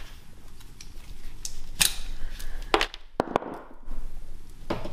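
Hook knife slitting and peeling the plastic jacket off a yellow 12/2 electrical cable: a few short, sharp scrapes and snaps, the loudest a little before two seconds in and around three seconds in.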